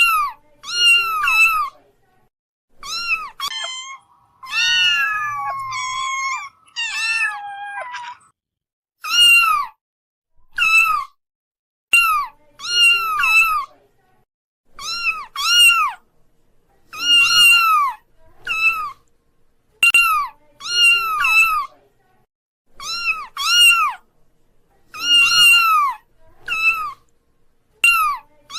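Kitten meowing again and again in short, high-pitched mews, often two or three close together with silent gaps between. A longer, wavering, drawn-out call comes between about four and eight seconds in.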